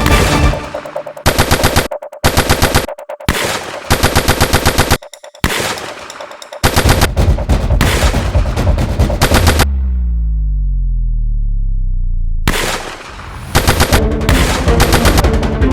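Automatic gunfire from a movie soundtrack, in several rapid bursts separated by brief pauses. About ten seconds in, the shooting stops for roughly three seconds and a deep, low rumble sinks in pitch; then the bursts start again.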